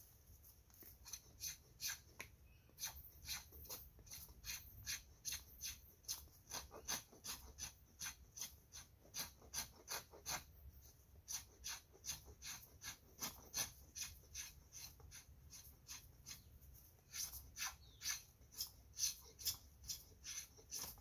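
A knife scraping in short, quick strokes, about two or three a second, pausing briefly a couple of times.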